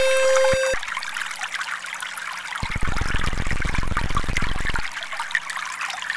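Trickling, running water, like a small stream. A steady electronic tone with overtones cuts off within the first second, and for about two seconds in the middle a low, rapidly pulsing electronic buzz plays over the water.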